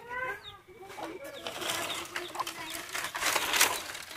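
Dry branches and dried palm fronds rustling and crackling as they are pulled from a brush pile by hand, loudest about three seconds in. A bird calls near the start.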